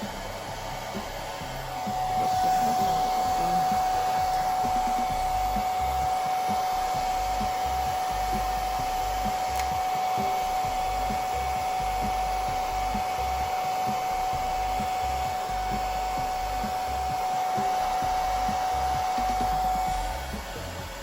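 Hair dryer blowing steadily with a constant whine, switched on about two seconds in and off about a second before the end.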